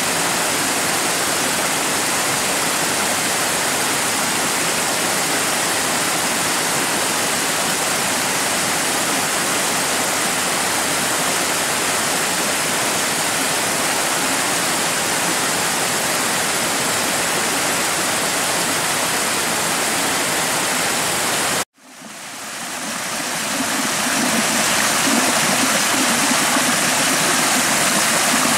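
Mountain stream below a karst spring cascading over boulders: a steady, dense rush of white water. About three-quarters of the way through it cuts out abruptly and fades back in over a few seconds, fuller and deeper.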